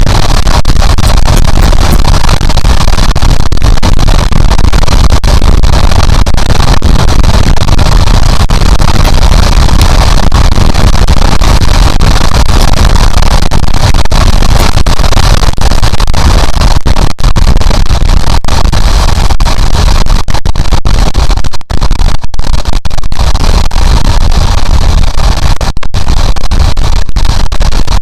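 Loud, steady wind rush over a helmet-mounted microphone on a Honda CB750 motorcycle at road speed, with the bike's engine and road noise underneath. A few brief dropouts break it in the second half.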